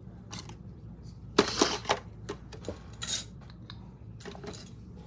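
Makeup items clicking and clattering against each other as they are rummaged through in a search for a concealer wand. A string of sharp knocks, the loudest few coming a little over a second in.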